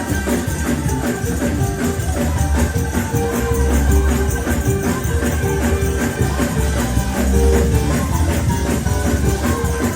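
Up-tempo gospel praise-break music: tambourines shaken and beaten fast over drums and heavy bass, with held chords running underneath.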